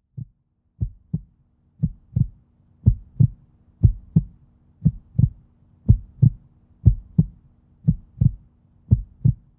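Heartbeat sound effect: paired low thumps, lub-dub, about one pair a second, growing louder over the first few seconds, over a faint steady low hum.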